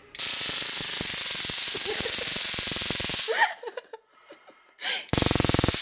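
Handheld stun gun (taser) crackling its electric arc in a loud burst of about three seconds, then again in a shorter burst about five seconds in. The rapid clicking is used as a wake-up jolt beside a sleeper, with a brief voice between the bursts.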